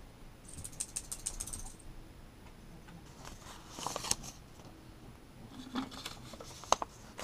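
Folded paper notes being handled and unfolded: short bursts of crinkling and rustling, three times, with a sharp click near the end.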